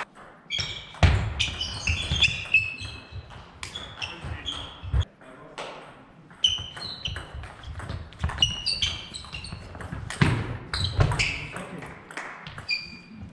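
Table tennis doubles rallies: the ball clicking in quick succession off bats and table, with short high squeaks of shoes on the sports hall floor and thuds of footwork. The rallies come in two bursts, with a short lull around five seconds in.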